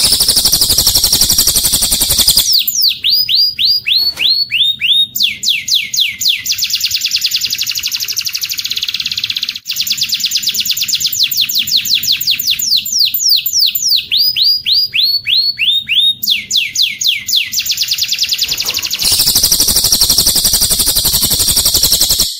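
Recorded songbird song of cililin and domestic canary. First a dense, rapid high trill for about two seconds, then long runs of fast, repeated down-slurred notes, from a few to about ten a second, changing in pace. The dense trill returns near the end and cuts off abruptly.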